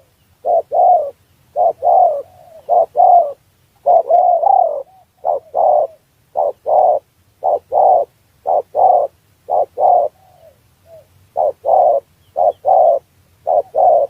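Spotted dove (tekukur) cooing: short coos, mostly in close pairs or short runs, repeated over and over with brief gaps.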